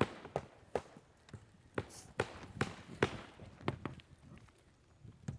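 Hammer blows on wood, several strikes at a time with short pauses between, as 1x4 furring strips are nailed down onto a roof.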